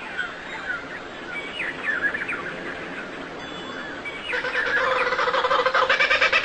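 Birds chirping, a run of quick short calls; about four seconds in, a louder pitched call with a rapid pulse starts and carries on.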